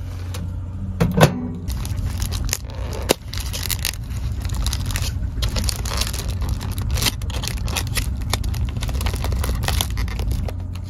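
Plastic food packaging crinkling and crackling as the wrap and clear plastic lid are handled and peeled off a takeaway noodle bowl, with a loud knock about a second in and a sharp click about three seconds in. A steady low hum runs underneath.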